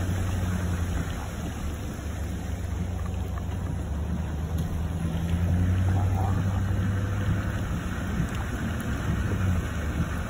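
Road noise of a moving car: a steady low drone of engine and tyres, with the hiss of tyres on wet pavement.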